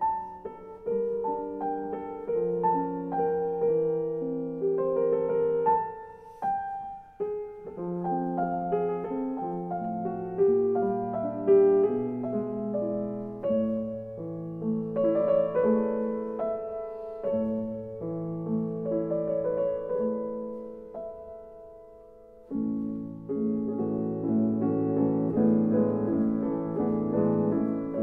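Background piano music, with held notes overlapping one another. It sinks low briefly about two-thirds through, then comes back with fuller chords.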